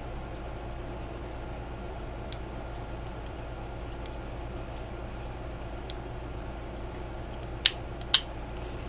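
Winch relay clicking twice, two sharp clicks about half a second apart near the end, as the wireless remote switches it in and then out, a sign that the replacement wireless receiver module works in both directions. A few faint ticks come earlier, over a steady low hum.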